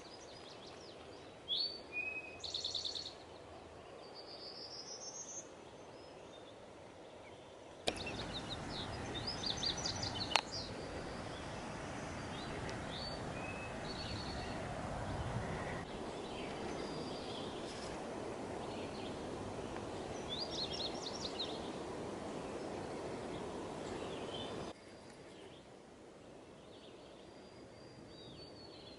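Wild birds chirping and calling in woodland. Through the middle a louder steady rushing noise starts and stops abruptly.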